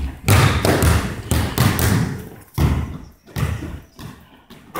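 Basketball dribbled on a hardwood gym floor: a run of bounces about two a second, each echoing in the hall.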